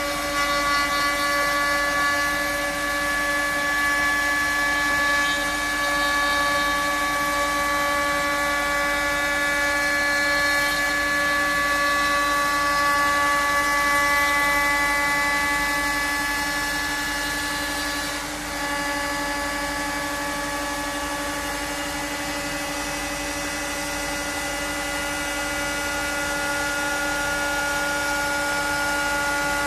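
CNC router spindle running at a steady high speed with a whine of several held tones, its bit milling a raised-panel profile into a softwood panel. The level dips briefly about two-thirds of the way through.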